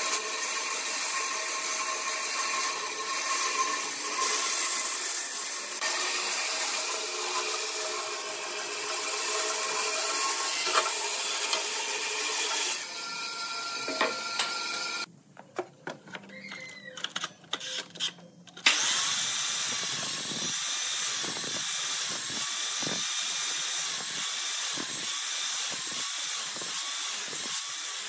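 Bandsaw running and cutting a thick wooden beam along a curved line. About 15 seconds in it drops to near quiet with a few clicks. Then a sliding mitre saw runs with an even repeating pulse as it makes a row of closely spaced cuts into the wood.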